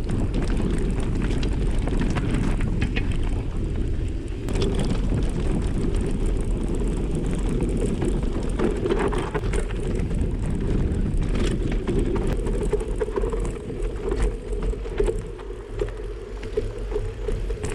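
Canyon mountain bike rolling downhill over a rocky dirt trail, heard close up on the bike: a steady low rumble of knobby tyres on gravel and stones, with many small knocks and rattles from the bike.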